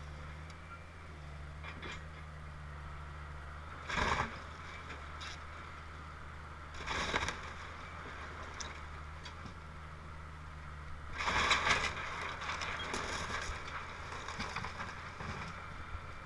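Link-Belt excavator's diesel engine running steadily while its bucket tears into a wood-frame house. Crashes of breaking timber and falling debris come about four seconds in and about seven seconds in, then a longer, louder crash from about eleven to thirteen seconds as a section of the house comes down.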